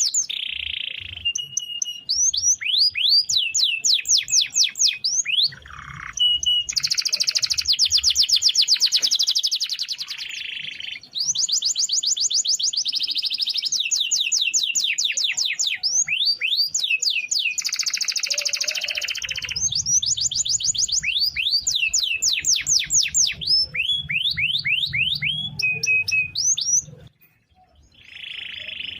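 Domestic canary singing a long, varied song: fast buzzing rolls alternate with runs of quick sweeping notes. The song breaks off briefly near the end.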